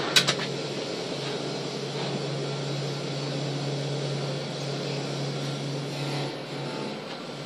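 A high-pressure billet grinding machine's grinding wheel grinding a steel billet: a steady grinding hiss over a steady motor hum. A couple of sharp clicks come just after the start, and the hum briefly drops out about six seconds in.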